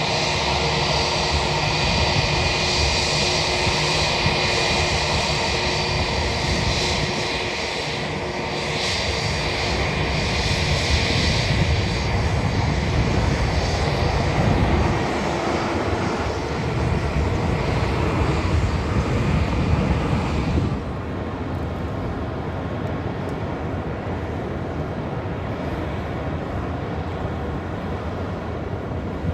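Boeing 747-400 LCF Dreamlifter's four jet engines running loud on its landing run, with a steady high whine over a rumble. About twenty seconds in the sound drops suddenly to a quieter, even engine noise as the aircraft taxis.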